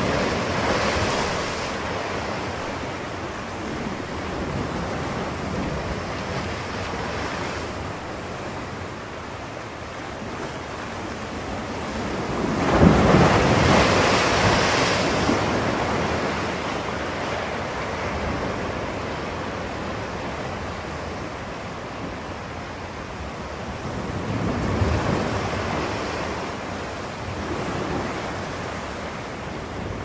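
Ocean surf washing in, a steady rushing that swells three times, loudest about halfway through.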